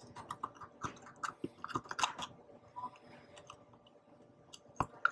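Oyster knife scraping and clicking against a Pacific oyster's shell as its tip is worked into the hinge to pry it open: a run of small, irregular crunches and clicks, with a sharp knock near the end.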